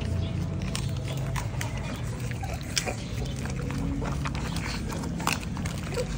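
A litter of German shorthaired pointer puppies lapping and slurping from a shared bowl, with many quick, irregular wet clicks and smacks.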